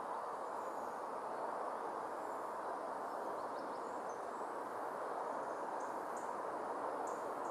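Steady outdoor background hiss with a few faint, short high chirps scattered through it.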